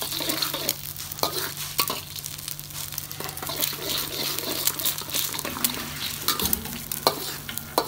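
Eggs sizzling in hot oil in a stainless steel wok while a spatula stirs and breaks them up into scrambled egg. Short scattered clicks of the spatula against the wok sound over a steady frying hiss.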